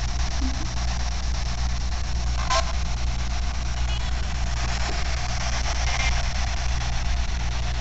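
Spirit box, a radio sweeping through stations, giving out steady static hiss over a low hum, with brief snatches of radio sound about two and a half seconds in and again around six seconds.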